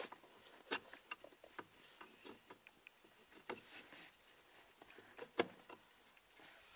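Faint scattered clicks and light metallic taps as the wiper linkage lever is fitted by hand onto the wiper motor spindle, with the sharpest clicks at about three and a half and five and a half seconds.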